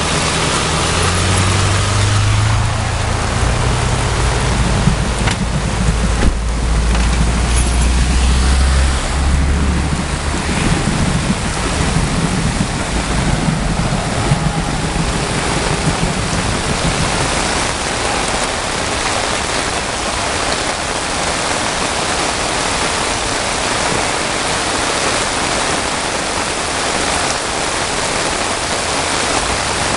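Steady hiss of heavy rain and flash-flood water, with a low engine hum under it that fades out about nine seconds in.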